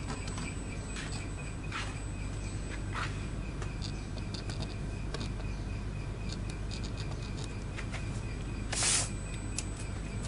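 Light pen taps and scratches on a poplar snowboard core and the handling of paper sheets, scattered small clicks over a steady low hum. One short paper rustle about nine seconds in is the loudest sound.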